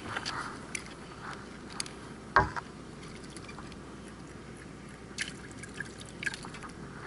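Water dripping and light clicks as a freshly landed Japanese horse mackerel is held in a fish grip, with one sharp knock about two and a half seconds in, over a low steady wash of water.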